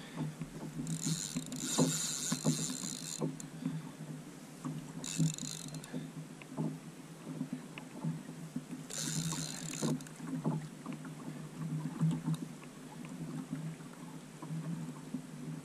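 Water lapping and knocking against a plastic fishing kayak's hull, with three short bursts of high buzzing from the fishing reel's drag as the hooked fish pulls line: about a second in, around five seconds, and around nine seconds.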